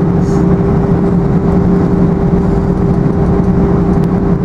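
Steady cabin rumble inside an Airbus A320 taxiing after landing, with a low hum and a higher steady tone held over it.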